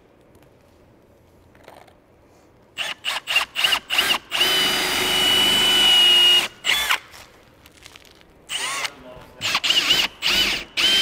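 Cordless drill with a quarter-inch bit boring a pilot hole through asphalt roof shingles into a truss. After about three seconds of quiet come a string of quick trigger pulses, each a short whine rising in pitch, then a steady run of about two seconds. After a pause a second set of short pulses follows, and the drill runs steadily again near the end.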